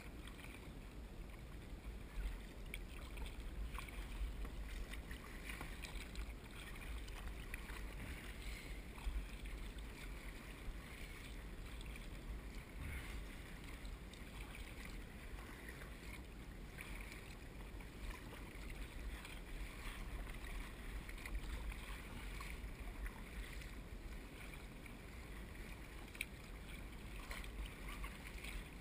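Kayak paddle dipping and splashing in choppy sea water, in small irregular splashes, over a steady low rumble of wind on the microphone.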